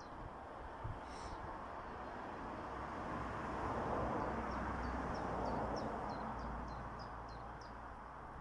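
A road vehicle passing, its tyre and engine noise swelling to a peak about halfway through and then fading. A small bird sings a quick run of short, falling high notes, about three a second, in the second half.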